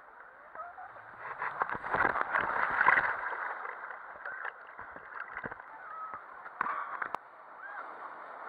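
Water rushing down a plastic water slide under a sliding rider. A loud splash comes about two seconds in as the rider plunges into the pool, followed by muffled churning water with the camera under the surface.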